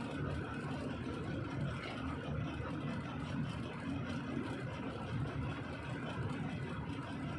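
Heavy diesel engine idling steadily, a low, even hum with no change in speed.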